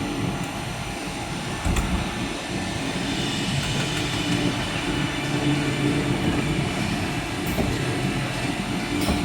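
Takisawa CNC lathe running: a steady mechanical whir with faint tones, and a brief knock about two seconds in.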